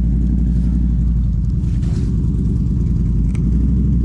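Four-wheeler (ATV) engine idling steadily, shortly after being started in freezing weather.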